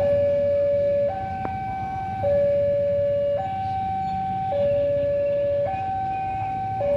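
Railway level crossing warning alarm sounding a steady two-tone electronic signal, switching between a low and a higher note about once a second, warning of an approaching train. A low rumble runs underneath.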